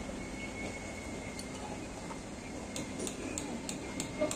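Light metallic hammer taps on a punch set against a wheel hub's bearing lock ring, about three a second, starting a little after halfway, over steady workshop background noise.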